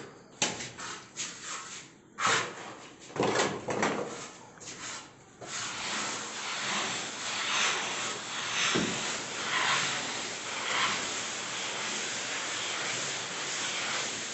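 Plastering trowel scraping across a wall: separate scrapes for the first five seconds or so, then a continuous rasping rub that swells about once a second.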